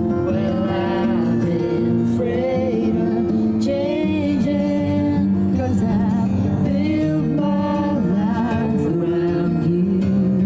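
Soft song playing: a singer's melody over guitar accompaniment.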